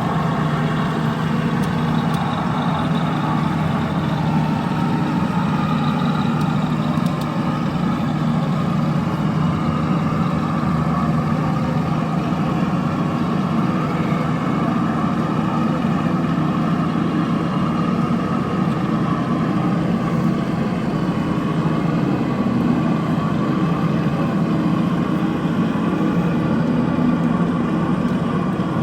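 Vehicle engines running steadily, an even low drone with no sharp changes.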